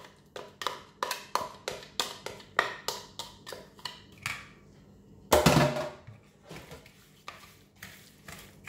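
White plastic spatula stirring and scraping in a bowl as beaten eggs are mixed into oil and muscovado sugar, tapping against the bowl about three times a second. One louder knock a little past halfway.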